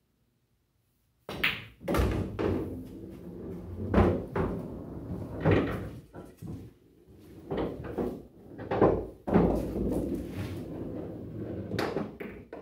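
A shot on a Valley bar-box pool table. A sharp knock about a second in is followed by a run of thuds and low rolling rumbles, typical of a pocketed ball running through the coin-op table's ball return, and footsteps on a plywood floor.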